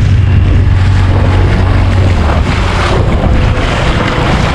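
Outboard motor of a small inflatable boat running under way through rough sea, a steady low hum, with wind rushing over the microphone and water splashing at the hull. About halfway through, the rush of wind and spray grows and partly covers the engine.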